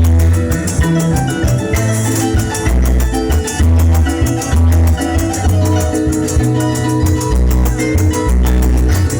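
Instrumental joropo music: a harp plays fast plucked runs over deep bass notes, with maracas shaking throughout.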